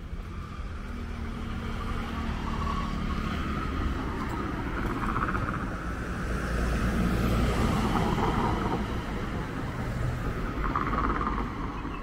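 Street traffic passing: car and motorbike engines with tyre noise, swelling to its loudest about seven to eight seconds in.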